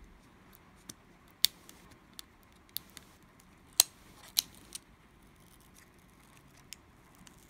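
Small repair tools clicking and tapping against the iPhone 5's internal parts while a part stuck on old adhesive is pried loose. About eight sharp clicks, spaced irregularly, the loudest about a second and a half in and near the middle, with little sound between them.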